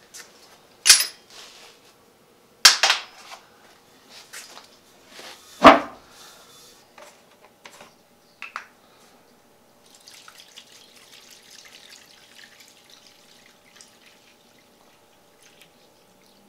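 Three sharp clanks, the loudest about six seconds in, then Evapo-Rust rust remover poured from a plastic jug into a steel tray of drill press parts, a soft splashing for a few seconds.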